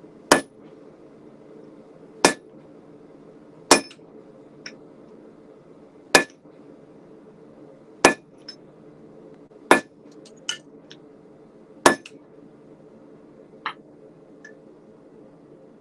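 Hammer blows on hot A2 tool steel laid over a hot-cut hardy on an anvil, cutting the bar: seven loud, ringing strikes about every one and a half to two seconds, with lighter clinks between them. A steady low hum from the gas forge runs underneath.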